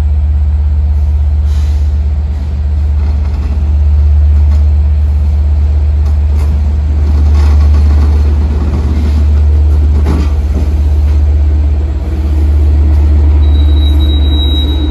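LIRR diesel locomotive running with a loud, steady, deep drone that swells and eases every few seconds. A few sharp knocks come about ten seconds in, and a faint high steady tone sounds near the end.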